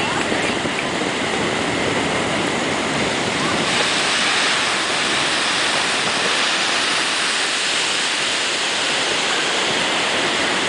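Heavy ocean surf breaking, a steady rushing wash of water that grows a little louder and brighter about four seconds in.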